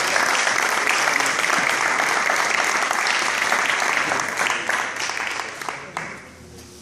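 Audience applause that fades away about six seconds in.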